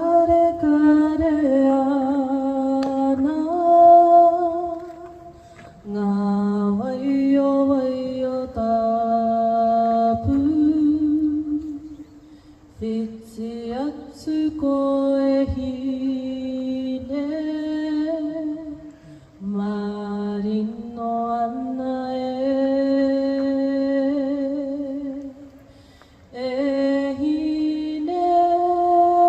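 A single unaccompanied voice singing a slow melody in phrases of long held notes, with short pauses between phrases.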